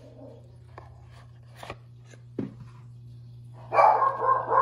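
A Shih Tzu barks a couple of times near the end, loudly, over a steady low hum. A few light taps and clicks come before the barks.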